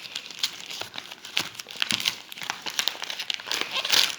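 Packaging being handled, crinkling and rustling in a run of short crackles, with a louder burst of crinkling near the end.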